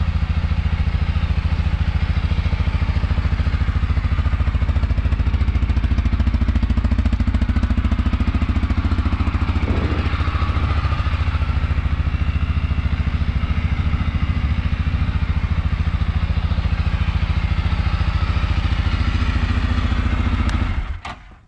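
CFMoto CForce 600 ATV's single-cylinder engine idling steadily, then shut off near the end.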